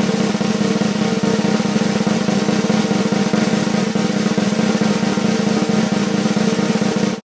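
Snare drum roll sound effect: a fast, even rattle held at a steady level that cuts off abruptly near the end.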